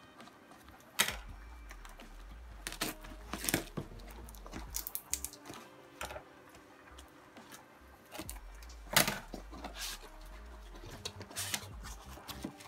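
Cardboard shipping box being opened by hand: packing tape peeled and ripped off and cardboard flaps pulled open, in an irregular series of sharp rips and scrapes, the strongest about a second in and about nine seconds in.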